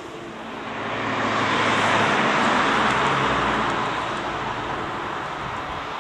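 A vehicle passing by: a steady rush of noise that swells for about two seconds, peaks, then slowly fades.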